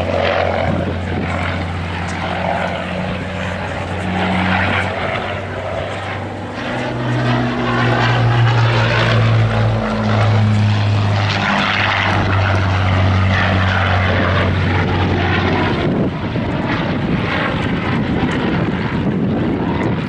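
Supermarine Spitfire Mk I's Rolls-Royce Merlin V12 engine and propeller in display flight. The engine note is steady at first, then rises in pitch and grows loudest about a third of the way in as the aircraft passes closest, and eases off again.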